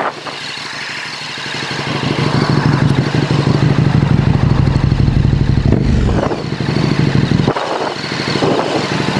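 KTM 1290 Super Duke R's V-twin with a full Akrapovič exhaust, heard on board, pulling hard under throttle; the engine note builds over the first couple of seconds and dips briefly about three-quarters of the way through.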